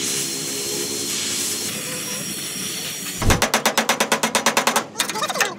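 Steady hiss of a gas brazing torch working on a steel minivan door sill. About three seconds in, a hand hammer starts tapping rapidly on the sheet-metal sill, about a dozen sharp blows a second, with a brief pause near the end.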